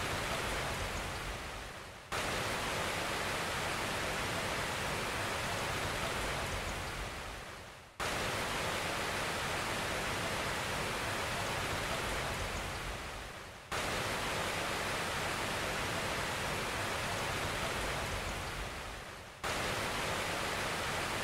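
Steady hiss of heavy rain that fades away and cuts sharply back in about every six seconds, four times over, like a short recording looped.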